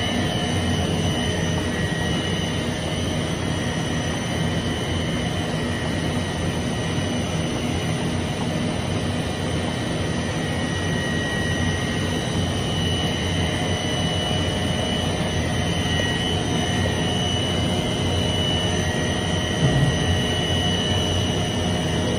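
850 mm six-colour flexo printing machine running at speed, the paper web feeding over its rollers: a steady mechanical drone with constant high whines over a low hum. A brief thump near the end.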